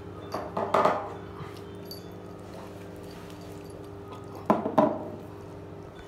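Cats eating a lickable treat from a small dish on a wooden table: the dish knocks and clinks in two short clusters, about a second in and again near the end, over a steady low hum.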